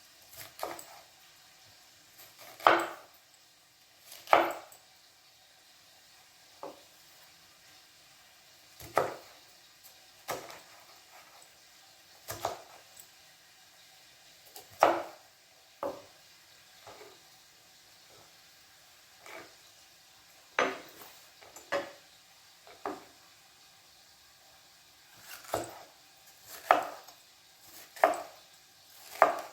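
Kitchen knife slicing a bell pepper on a cutting board: separate sharp chops at an uneven pace, about one every one to two seconds, some louder than others.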